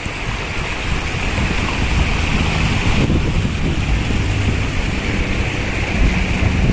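Wind buffeting the microphone in gusts over the steady rush of a shallow stream running over rocks.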